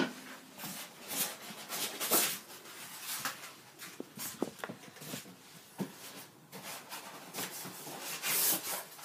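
TV packaging being unpacked by hand: irregular rustling and scraping with small clicks and knocks, and a louder rustle near the end.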